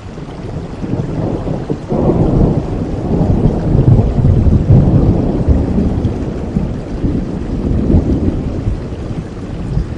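Thunder rolling over steady rain: a low rumble swells sharply about two seconds in, peaks a few seconds later and slowly fades.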